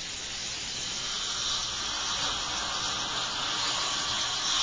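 Dental suction wand drawing air and saliva from the patient's mouth, a steady hiss that grows a little louder near the end.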